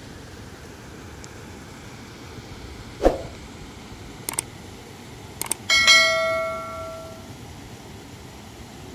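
A steady hiss, with a dull knock, a few sharp clicks, and then a strike that rings on with a bell-like tone for about a second and a half.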